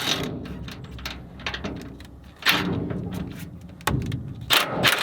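Several sharp metal clunks and short scraping hits, irregularly spaced, over a steady low hum.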